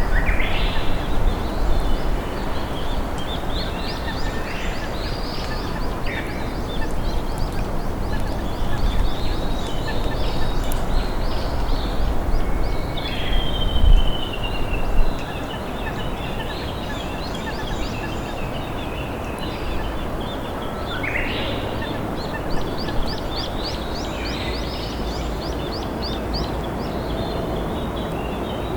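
River water flowing steadily, with wild songbirds calling over it: scattered short chirps and whistles, a longer whistle that falls slightly in pitch about halfway through, and a fast run of high ticking notes near the end.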